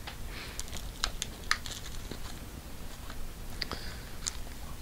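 Clear plastic comic-book bags crinkling and ticking as bagged comics are handled and slid off a stack, in short irregular crackles.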